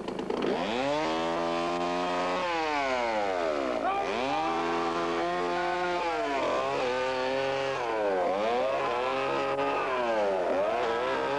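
Chainsaw engine revved over and over: its pitch climbs, holds high for a second or two, then drops back, about four times.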